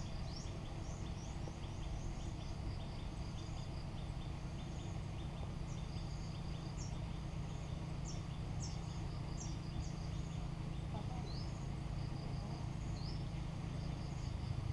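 Small birds chirping in short, quick downward calls, many in a fast run at first and more scattered later, over a steady low rumble.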